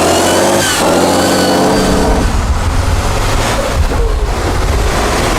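Vehicle engine sound: a pitched engine note with a short falling whistle-like glide just under a second in, giving way about two seconds in to a low, steady rumble.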